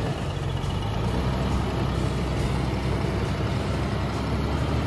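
Four-wheel-drive vehicle's engine running steadily at low revs, a constant low rumble.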